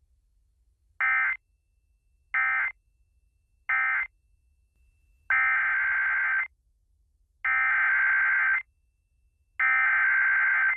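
Emergency Alert System SAME digital data bursts, a harsh two-tone warbling buzz. First come three short end-of-message bursts that close the previous warning, then, about five seconds in, three longer header bursts that open the next warning.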